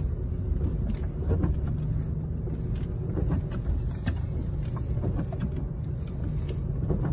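Car driving slowly on a wet road, heard from inside the cabin: a steady low rumble of engine and tyres, with scattered light ticks throughout.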